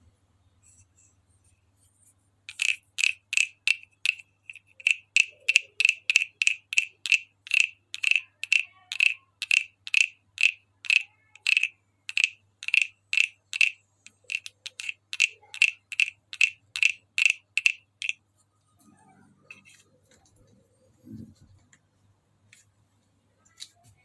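Small hand-carved wooden croaking frog played by running its wooden stick along the ridged back: a steady train of rasping, frog-like croaks, about three a second, with two short pauses, stopping a few seconds before the end. A soft knock of handling follows.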